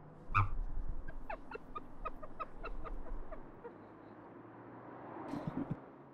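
A person's stifled laughter: a sudden snort of laughter, then a run of short, quick chuckles that fade out over about three seconds.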